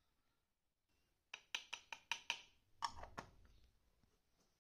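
Hard plastic toy dishes clicking and knocking together as they are handled: a quick run of about six light clicks, then two duller knocks, the first with a soft thud, about three seconds in.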